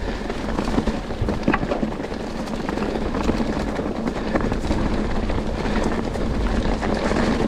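Mountain bike riding fast over rough ground. Tyres rumble steadily and wind buffets the action camera's microphone, with scattered sharp knocks and rattles from the bike.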